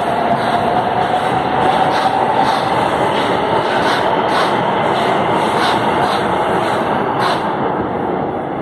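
São Paulo Metro train running past on elevated track: a steady rumble of steel wheels on rail with a whining tone, and irregular clacks as the wheels cross rail joints. The sound eases off slightly near the end as the last cars go by.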